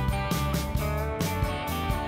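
Instrumental background music with guitar and a steady beat.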